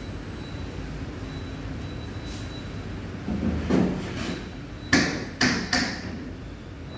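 Three sharp knocks on a wooden bookcase frame, a third to half a second apart, each with a short ring. Just before them comes a brief rough buzzing sound.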